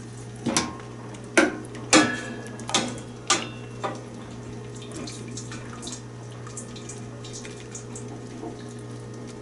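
A serving spoon clinking against stainless steel pots, about six sharp knocks in the first four seconds, while broth splashes and drips as pieces of cooked pork spine are lifted out of it. After that come only a few faint ticks and drips.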